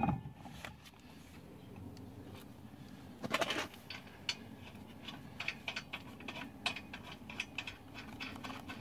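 Small irregular metal clicks and taps as lug nuts are threaded by hand onto the wheel studs of a steel donut spare tire, with one louder clink or scrape a little over three seconds in.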